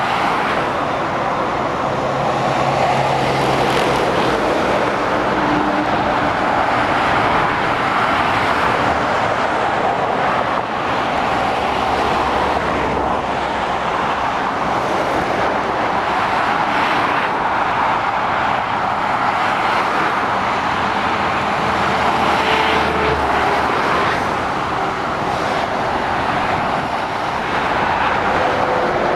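Steady motorway traffic: tyre noise and the diesel engines of lorries and cars driving past. A heavy lorry's low engine note stands out for a while in the middle.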